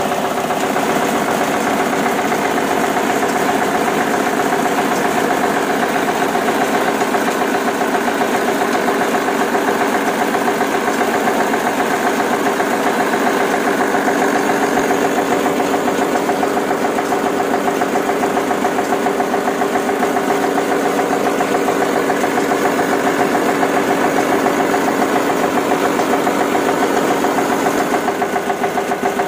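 Homemade model diesel engine running steadily and driving a cardboard mini thresher through a rubber belt: a constant motor hum with a fast, even chugging pulse.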